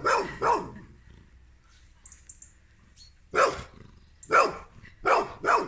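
A dog barking: two short barks right at the start, then four more spread through the second half.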